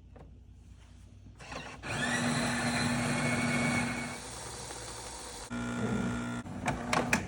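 Automatic espresso machine making a cappuccino. Its pump hums under a loud hissing noise from about a second and a half in, easing off after about four seconds. A second, shorter machine hum follows, then a few sharp clicks near the end.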